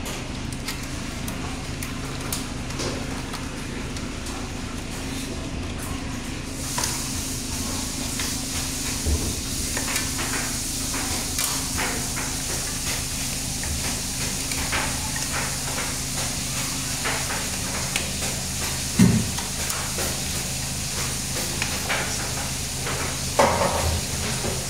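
Scattered clicks and knocks from the sheet-metal electrical control box of a Mitsubishi Electric split air-conditioner indoor unit being handled, with its wiring shifting. A steady low hum and hiss run underneath. The loudest knock comes about nineteen seconds in, and another sharp one a few seconds later.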